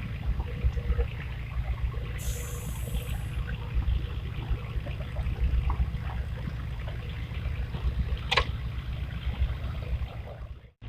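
Riverside water trickling over a steady low rumble, with a brief high hiss about two seconds in and one sharp click near the end. The sound cuts off suddenly just before the end.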